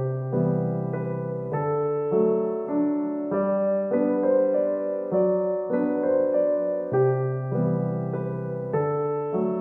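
Background music: a gentle piano tune of steady notes that change about every half second, in a phrase that repeats.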